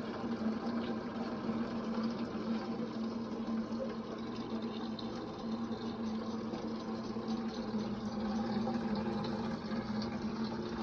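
Water running steadily, with a constant low hum underneath.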